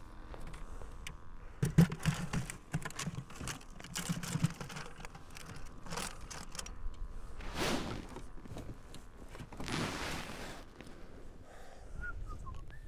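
Gear being packed onto a plastic ice-fishing sled by hand: rustling of nylon covers and bags with irregular clicks and knocks, and two longer swishes past the middle.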